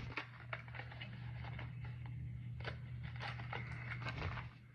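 Handling noise: scattered light clicks and scrapes of objects being moved by hand, over a steady low hum that stops near the end.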